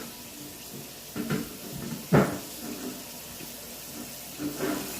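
Someone chewing a mouthful of black pepper turkey jerky trail mix, with three short louder mouth sounds over a quiet background, the loudest about two seconds in.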